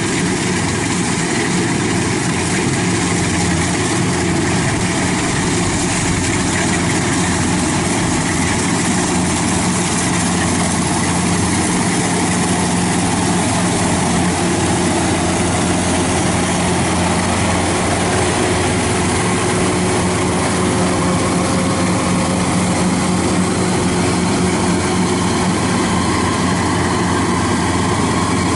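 Kubota DC-93 combine harvester's diesel engine running steadily under load as the machine cuts and threshes rice, a constant loud mechanical drone with a steady hum.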